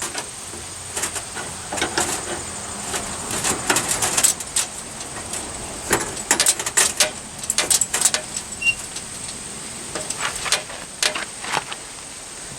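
Irregular knocks, clicks and clacks of tools and parts being handled while an old wagon is taken apart, with a dense run of sharp clacks from about six to eight seconds in.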